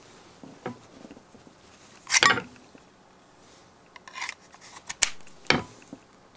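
Knife drawn from a Kydex sheath with a short plastic scrape about two seconds in, then pushed back in with a few clicks and a sharper snap as it seats in the sheath's retention.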